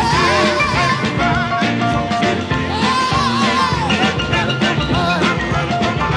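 Band music with a steady beat and a lead melody of long, wavering notes.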